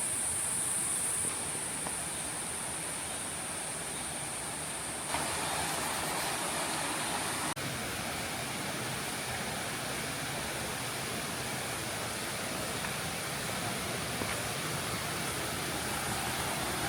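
Steady rush of falling water from a waterfall, an even noise that shifts up a little about five seconds in, with a thin high hiss above it.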